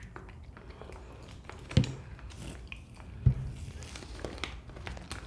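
Chewy green grape jelly being chewed close to the microphone, with small wet clicking mouth sounds. Two louder knocks stand out, just under two seconds in and again about a second and a half later.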